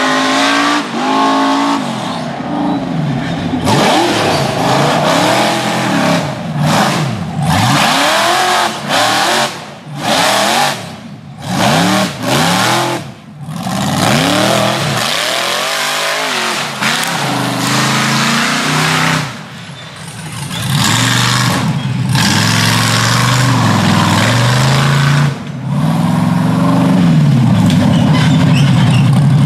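Rock bouncer buggy engine revving hard in repeated rising and falling surges as the throttle is worked on the climb, with several brief drops when the throttle is lifted around the middle, then held high near the end.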